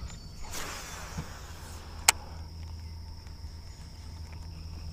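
Electric trolling motor running with a steady low hum and a thin high whine. A brief rush of noise comes about half a second in, and a single sharp click about two seconds in.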